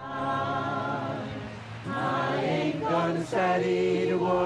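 A choir singing, with long held notes that move to new chords about two seconds and three seconds in.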